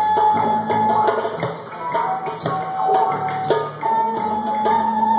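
Flute playing long held notes of a slow melody, with a hand drum patted along underneath. A new, higher note starts about four seconds in and is held.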